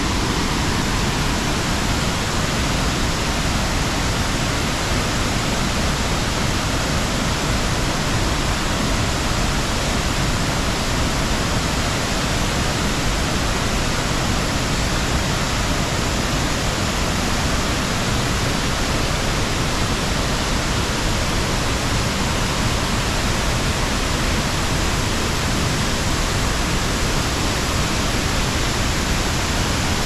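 Waterfall pouring, a steady, unbroken rush of falling water.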